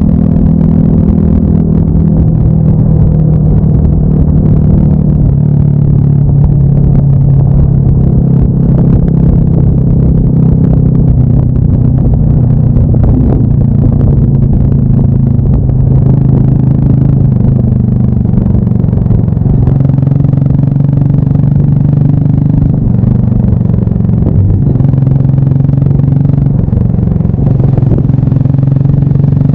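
Honda Monkey 125's single-cylinder four-stroke engine running as the bike is ridden, its note rising and dropping a little with the throttle.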